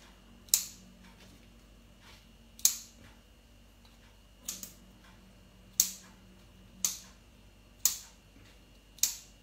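Kitchen scissors snipping through the loose ends of cotton kitchen twine, about seven sharp snips a second or two apart.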